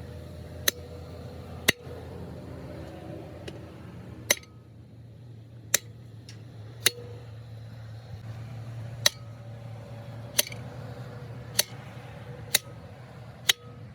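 Sharp metal clinks or taps, about ten in all at uneven intervals of one to two seconds, over a low steady hum.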